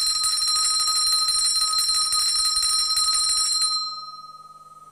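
A metal hand bell shaken rapidly, its clapper striking many times a second for nearly four seconds, then left to ring out and fade. It is rung beside a coma patient's head as a sound stimulus to test for a response.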